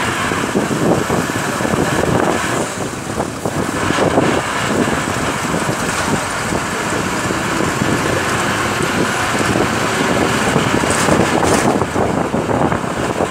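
Wind rushing and buffeting on the microphone at an open window, over the running and road noise of a moving vehicle. The sound is loud and steady.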